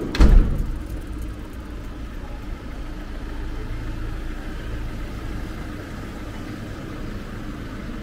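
A motor vehicle engine running steadily close by, with a sharp low thump just after the start.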